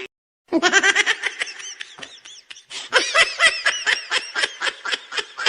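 Laughter, likely an edited-in laugh sound effect: a fast run of short 'ha' bursts that starts about half a second in.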